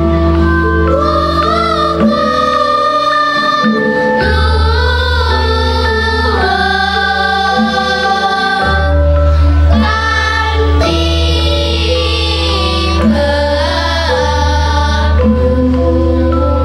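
Children's choir singing a song in Javanese over a sustained instrumental accompaniment of held chords with a steady bass.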